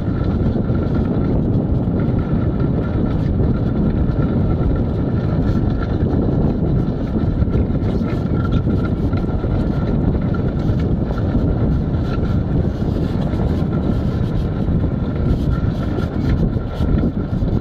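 Steady rumbling noise of a dog-drawn training cart rolling over a dirt and gravel trail, with wind buffeting the microphone.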